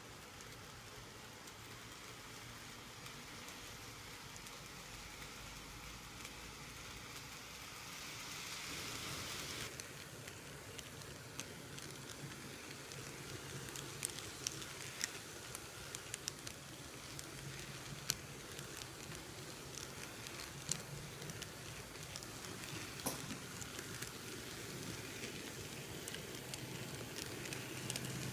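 HO-scale model diesel locomotive (Bachmann SD45) running on plastic track: a faint steady hum from its small electric motor and drive under a soft hiss, with scattered sharp clicks from the wheels over the rail joints from about halfway on.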